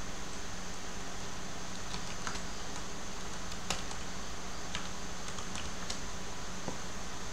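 A few scattered keystrokes on a computer keyboard, sharp single clicks spaced irregularly, over a steady background hiss and low hum.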